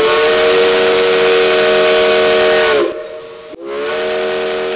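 Steam locomotive chime whistle sounding a chord of several tones over a hiss: one long blast that sags in pitch and cuts off about three seconds in, then a second blast that begins to fade near the end.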